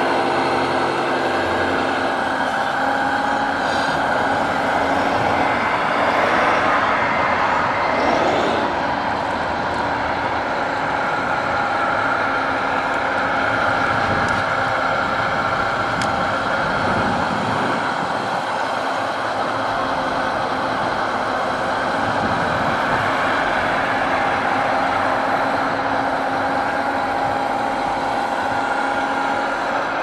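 Radio-controlled scale construction machines running: a model hydraulic excavator loading a model dump truck gives a steady mechanical drone with several held tones, swelling briefly about eight seconds in.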